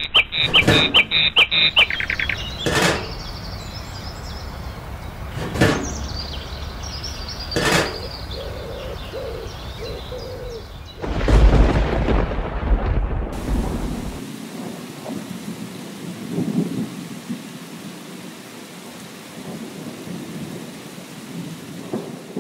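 Thunderstorm sound effect: three sharp thunder cracks, then a loud rolling rumble of thunder about eleven seconds in, settling into steady rain.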